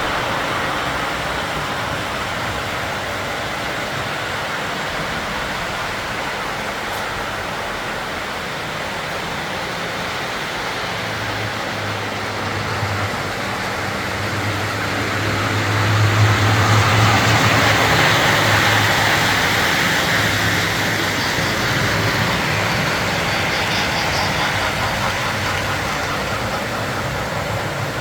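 O-gauge model trains running on the layout: a steady rolling rumble of wheels on the track, with a low motor hum that comes in about eleven seconds in and grows louder as a train passes close midway through.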